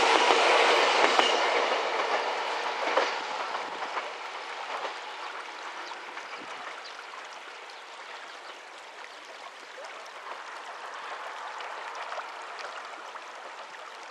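An Alpico Kamikochi Line electric train running over the level crossing and pulling away, its wheels clicking over the rail joints. The sound fades steadily over the first several seconds, leaving a faint, steady background noise.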